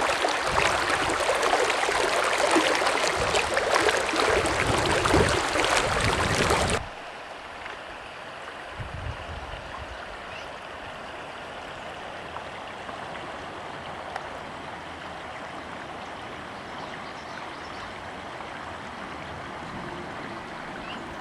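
Rushing river water, loud for about the first seven seconds, then dropping off suddenly to a quieter steady rush of flowing water.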